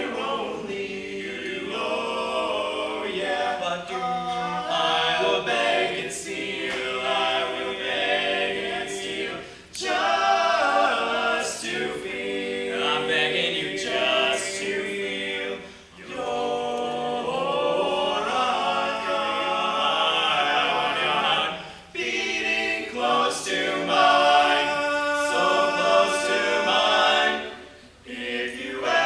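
Male barbershop quartet singing a cappella in close four-part harmony, with short breaks between phrases about every six seconds.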